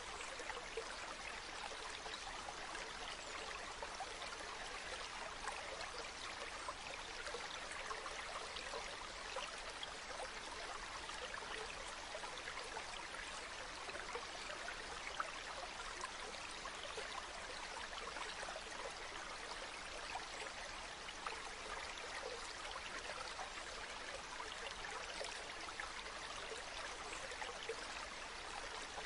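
Shallow stream running over pebbles: a steady babble of trickling water with many small splashes and gurgles.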